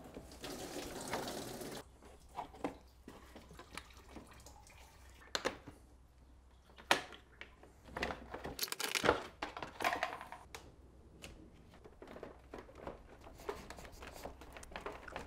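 Gloved hands working rubber coolant hoses loose on a BMW V12 engine: scattered light clicks, knocks and rubbing, with a steady rushing noise for about the first two seconds.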